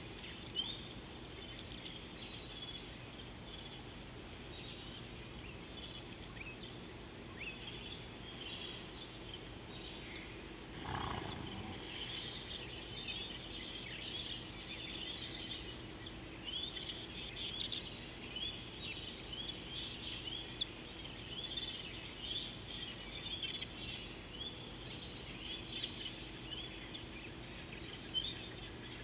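Many small birds chirping continuously in a dense chorus of short, high calls. About a third of the way through comes one brief, lower sound lasting about a second, over a faint steady low hum.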